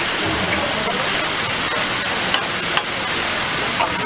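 Meat-wrapped rolls sizzling on a hot flat-top griddle: a steady hiss, with a few sharp clicks in the second half.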